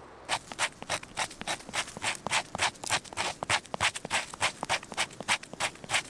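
Rhythmic hand scraping strokes, about three or four a second, even and steady throughout.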